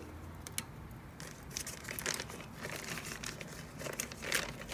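Charcoal fire crackling in an open kamado grill beneath the fruit: scattered soft crackles and crinkling pops, one a little stronger near the end.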